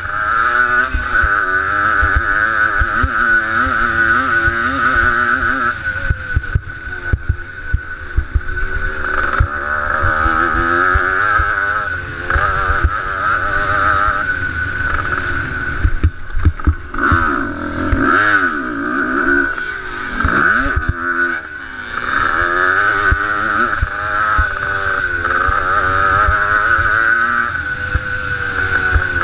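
Motocross bike engine revving hard under race throttle as heard from the rider's helmet. The pitch rises and falls with throttle and gear changes and drops sharply a couple of times past the middle before picking back up. Short low knocks run through it.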